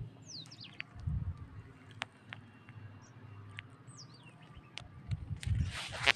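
Small birds chirping in quick falling calls, about half a second in and again around four seconds in, over a few low dull thuds. Near the end comes a short crunch, most likely a piece of fired clay pot.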